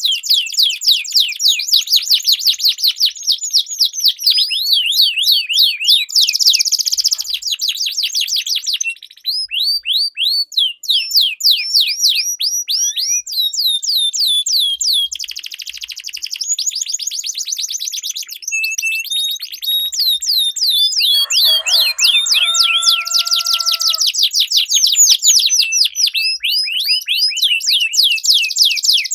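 Domestic canaries singing long rolled songs: fast runs of repeated high chirps and trills with barely a pause. About three-quarters of the way through, a brief steady, lower whistle-like tone sounds under the trills for a few seconds.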